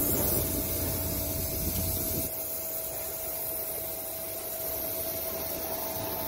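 Steady hissing, rushing noise, fuller in the low end for the first two seconds and a little lighter after, with a faint steady tone running under it.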